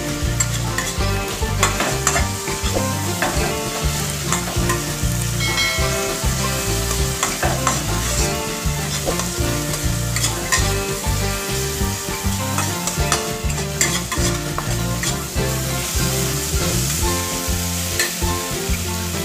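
Spatula stirring and scraping onion, tomato, garlic and ground spices around a kadai as they sizzle in hot mustard oil: the masala being fried down (koshano) for a fish kalia. Background music plays underneath.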